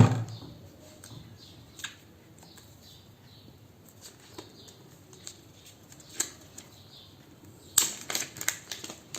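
Faint rustling and small clicks of a phone box and its packaging being handled, with a louder run of crackling about eight seconds in as the handset in its plastic wrap is picked up.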